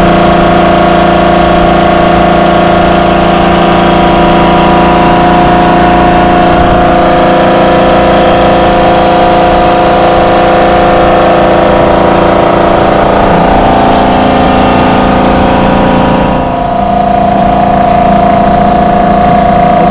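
A Rainman portable watermaker runs steadily under pressure: its electric motor and high-pressure pump make a constant, loud hum with several steady tones. The sound dips briefly a little over three-quarters of the way through.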